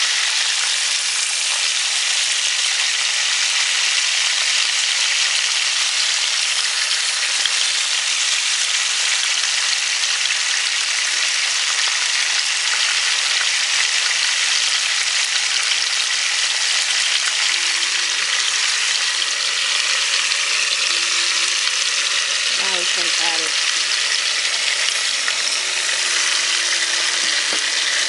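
Whole fish sizzling in very hot oil in a pot: a steady, even frying hiss.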